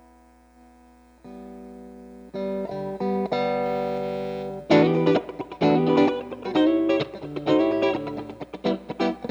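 Electric guitar played through a Line 6 POD HD300 amp modeller, recorded direct: a quiet ringing chord, then held chords and notes that grow louder. From about five seconds in come fast, choppy strummed chords.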